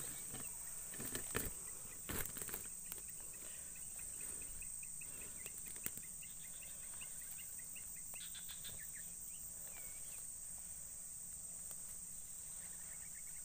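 Steady high chirring of crickets and other insects, with a few brief rustles of dry grass being handled in the first seconds and a run of quick repeated chirps in the middle.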